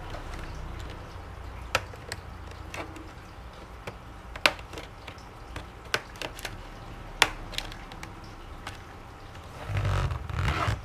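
Plastic retaining clips of a Lenovo V130 laptop's bottom cover snapping loose as the cover is pried off from a corner: a series of sharp, irregular clicks, with louder handling noise of the cover near the end.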